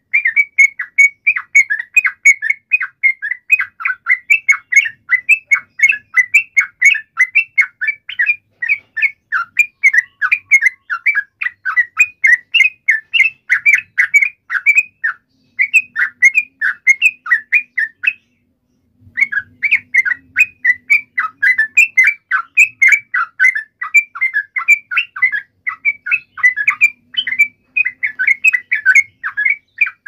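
Yellow-vented bulbul (trucuk) calling in a fast, continuous run of short, loud chattering notes, several a second. It breaks off briefly about halfway through, then pauses for about a second before resuming.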